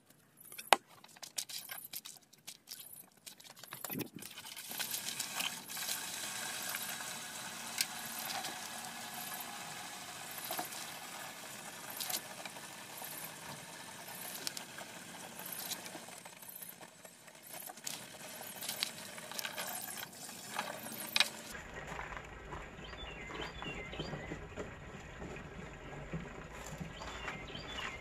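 Water running from a garden hose into a tractor-mounted sprayer tank, with scattered clicks and knocks of handling the sprayer fittings.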